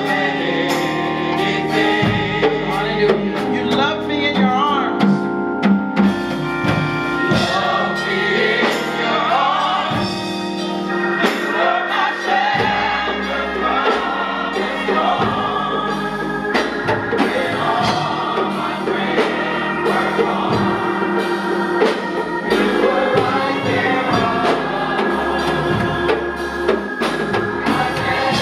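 Gospel choir singing over a live band, with steady drums and bass under long held chords.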